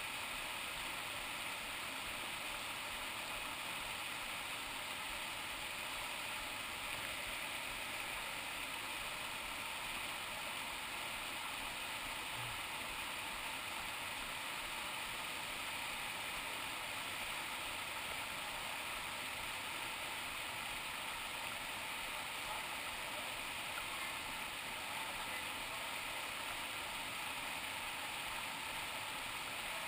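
River whitewater rushing steadily over rocks and small cascades.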